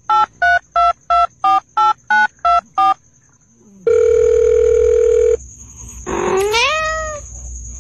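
Telephone keypad tones: about nine short two-note beeps at about three a second, then a steady telephone tone for about a second and a half, then a short rising meow-like call.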